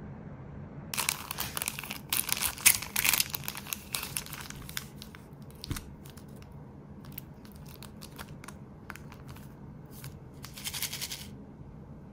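Crinkling and rustling of plastic-bagged nail-part packets being handled: a dense stretch of crackling about a second in, then scattered small ticks and crackles, and another short burst of crinkling near the end.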